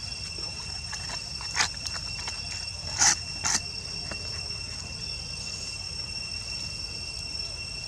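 Steady high-pitched insect drone, cricket- or cicada-like, holding one pitch throughout. Three short sharp sounds cut across it, the loudest two close together a little before the middle.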